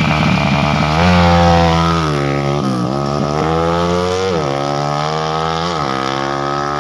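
Honda Tiger single-cylinder four-stroke motorcycle engine, bored out with a 66 mm piston, running at a fast idle and blipped on the throttle: the revs rise and hold about a second in, drop back, then rise and fall three more times.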